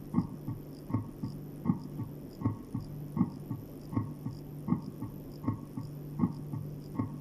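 Simulated heart sounds from an auscultation mannequin: an S4 gallop, with an extra low sound just before the first heart sound in each beat, at about 80 beats a minute, over a steady low hum.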